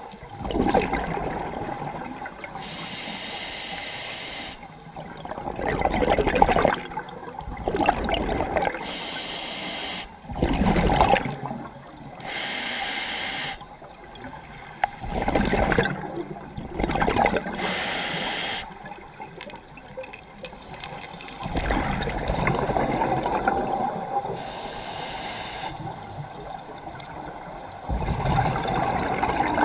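A scuba diver breathing through an open-circuit regulator underwater, slow and even. Each breath is a hiss of air drawn from the regulator, then a gurgling rush of exhaled bubbles, five or six breaths in all.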